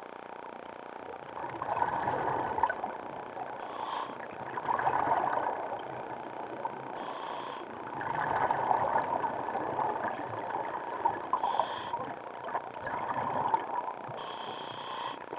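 Scuba diver breathing through a regulator underwater, heard through the camera housing: bubbly rumbling exhalations of a second or two alternate with short hissing inhalations, about four breaths in a steady rhythm.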